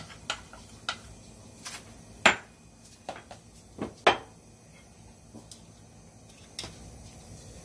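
Kitchen handling knocks and clicks: a wooden spatula tapping cut cabbage out of a bowl into a frying pan, the bowl set down and bottles picked up off the counter. Two louder knocks come about two and four seconds in, and the sounds thin out after that.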